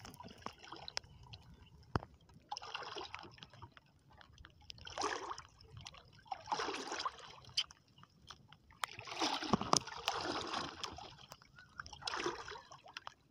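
Water splashing and lapping against the hull of a small wooden outrigger boat, in irregular washes that come and go every second or two.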